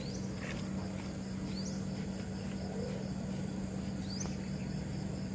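Outdoor pond-side ambience: a steady low electric hum under a continuous high insect buzz, with a short rising chirp three times.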